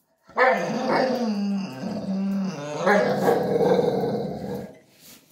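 A dog growling in one long grumble that rises and falls in pitch for about four and a half seconds.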